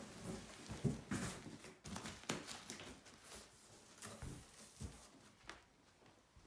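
Large corrugated cardboard box flaps being pulled open and folded back by hand: a series of irregular scrapes and rustles, with a few sharper knocks of cardboard.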